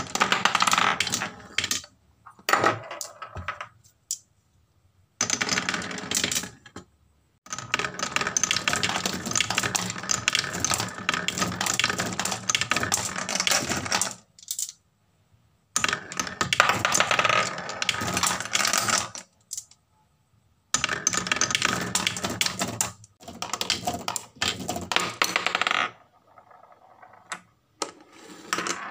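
Glass marbles rolling down a wooden HABA marble run, clattering rapidly over the wooden pegs of its slopes. It comes in several runs of dense clicking with short silent breaks between them.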